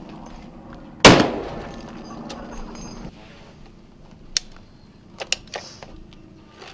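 A Barrett .50-calibre sniper rifle fires one shot about a second in, the report echoing and dying away over about two seconds. Later come a few short, sharp metallic clicks as the rifle's magazine is handled and removed.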